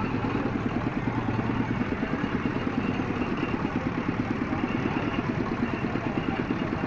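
An engine running steadily with a fast, even chugging.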